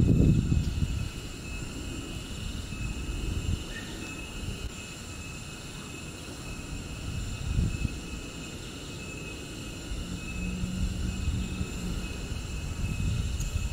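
Outdoor ambience: a low, uneven rumble under a steady, high-pitched insect drone.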